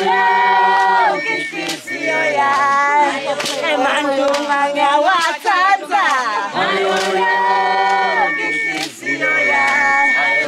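A group of women singing together, a traditional Swazi wedding song in chorus, with long held notes near the start and again about two thirds through. A few sharp percussive hits come in along the way.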